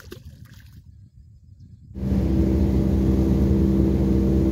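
A small splash as a released fish goes back into the water, then, about two seconds in, a motorboat's engine running loud and steady at speed, with the rush of the boat moving through the water.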